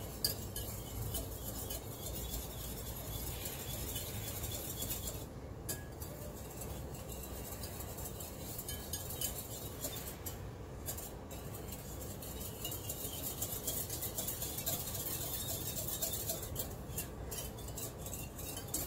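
Wire whisk beating eggs in a glass mixing bowl: a steady, continuous light clinking of the wires against the glass.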